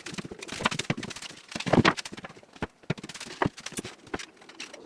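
Quick irregular knocks, clicks and clatter of carpentry work sped up in time-lapse, loudest just before two seconds in.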